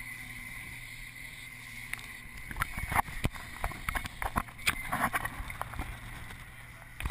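Boat engine running steadily with wind and water rushing past. From about two and a half seconds in, a few seconds of splashing mixed with rapid sharp knocks and clatter, loudest around three and five seconds in, as the fish is worked alongside the hull.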